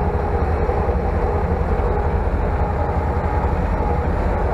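Tractor engine running steadily as the tractor drives along, heard from inside the cab, a heavy low drone with a steady hum above it.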